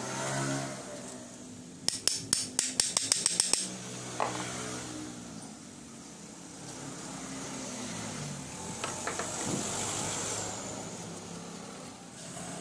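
Rapid metallic tapping, about a dozen sharp taps in under two seconds, as the metal parts of an old 600-watt electric hand planer are handled during its repair. A low, steady engine-like hum runs underneath.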